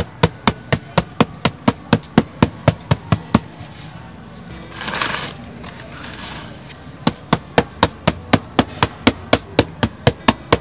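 Fist knocking on the side of a black plastic plant pot to loosen the root ball for repotting: two quick runs of about four knocks a second, with a pause and a brief scuff near the middle.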